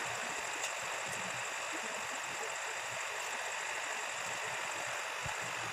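Steady hiss of room noise with a thin high whine, under faint soft thumps and rustles of a child tossing on a bed.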